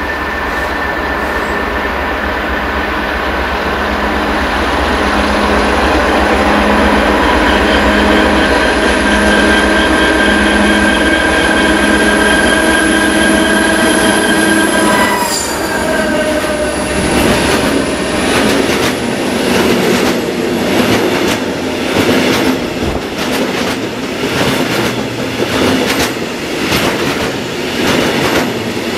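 A DR class 232 'Ludmilla' diesel locomotive's Kolomna 16-cylinder two-stroke engine running as it approaches, growing louder, with its note dropping in pitch as it passes about halfway through. Then a train of covered hopper wagons rolls by with a clatter of wheels on the rails.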